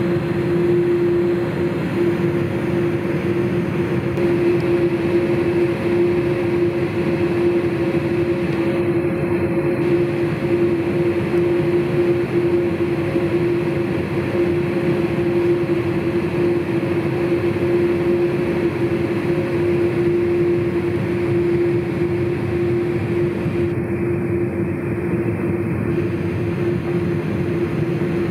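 Steady cabin noise inside a Boeing 787-8 Dreamliner as it taxis: a constant hum with a steady droning tone running through it.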